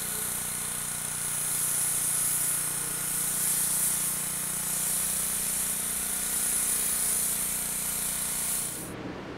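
Pressure washer spraying water hard against the house wall and window: a steady loud hiss over a low steady hum, cutting off about nine seconds in.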